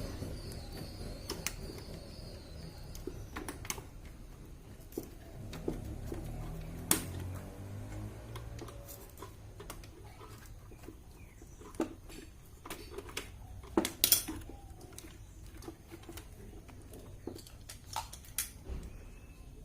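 Irregular sharp clicks and knocks of plastic and metal as a UPS battery backup's circuit board is pressed free of its clips and lifted out of the casing, the loudest knocks about two-thirds of the way through.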